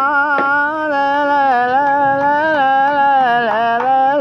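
A single voice holding one long, drawn-out note of a Yemeni malalah folk chant, wavering slightly in pitch with a small dip near the end, without instruments.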